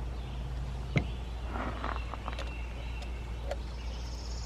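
A sharp metallic click about a second in, then a few faint clicks and scrapes: a socket and extension being handled and seated on a spark plug. A steady low hum runs underneath.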